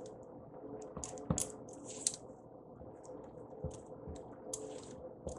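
Spatula mashing and scraping butter and powdered sugar against the sides of a glass mixing bowl, making irregular soft clicks and brief scrapes. A faint steady hum runs underneath.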